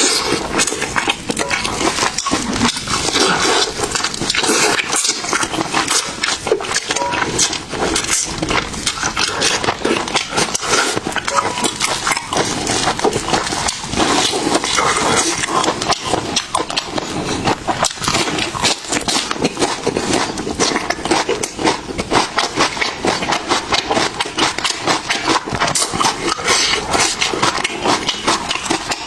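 Close-miked eating: chewing and mouth sounds heard as a dense, unbroken run of rapid clicks and crackles.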